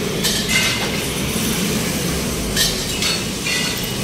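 Metal being pounded at a construction site: several sharp clanks at uneven intervals over a steady rumble of traffic and machinery.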